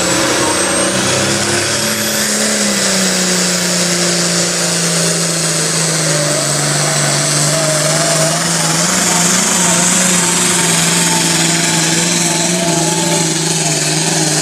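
Modified pulling tractor's engine running flat out under load as it drags the pulling sled, a loud, steady engine note. A high whine climbs in pitch over the first couple of seconds and then holds.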